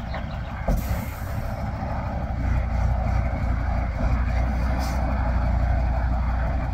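Tatra 815 tipper's air-cooled V10 diesel running while the tipping body comes down, growing louder from about halfway through. A brief hiss about a second in and another, shorter one near the end.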